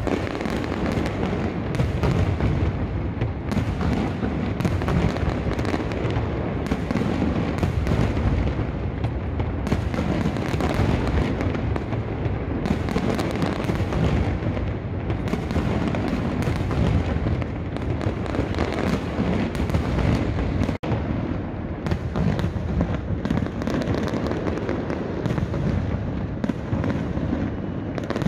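Aerial fireworks display: a continuous barrage of shell bursts, many sharp bangs overlapping into a rumble with crackle, without let-up.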